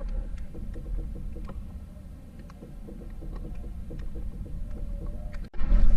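Low, steady rumble of wind and sea water around a small wooden outrigger boat, with a few faint clicks scattered through it.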